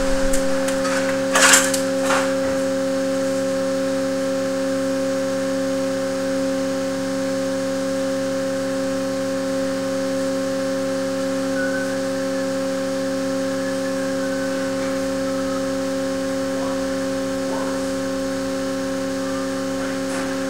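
Steady machine hum from the structural load-testing rig, made of several constant tones, with a few sharp clicks in the first two seconds, the loudest about a second and a half in.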